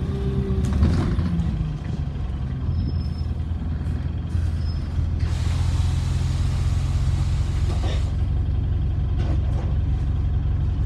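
Diesel engine of an Alexander Dennis Enviro400 double-decker bus running steadily, heard from inside the lower deck. About halfway through comes a hiss of compressed air from the bus's air system, lasting about three seconds.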